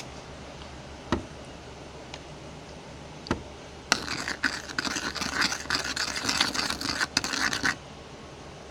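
Two single knocks, then a spoon scraping and stirring in a bowl for about four seconds, mixing powder detergent into warm water.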